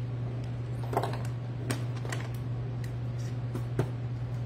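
Scattered light clicks and rustles of hands working mesh petals on a flower board, the sharpest clicks about a second in, near the middle and near the end, over a steady low hum.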